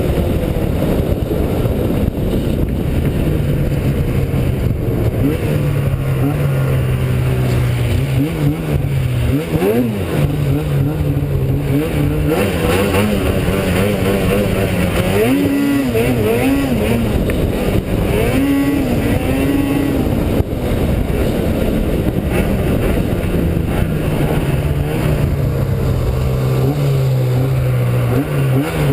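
Snowmobile engine running under way. It holds a steady pitch at first, then revs rise and fall again and again through the middle before it settles to a steady drone near the end.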